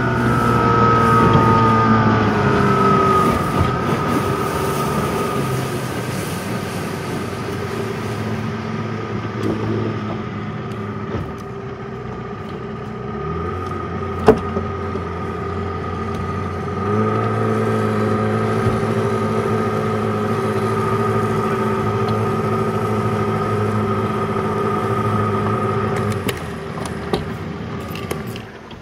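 Mercury 85 hp outboard motor running slowly on a speedboat. Its pitch falls over the first few seconds as it throttles back, then holds steady. It gets louder again about two-thirds through and drops away just before the end, with one sharp click about halfway.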